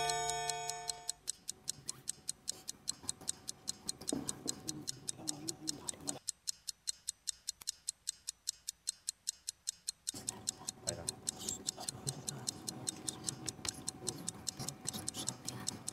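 A quiz-show timer signal tone with ringing overtones fades out in the first second. Then a clock-style timer ticks fast and evenly, marking the running discussion time, with faint murmured team discussion coming and going under it.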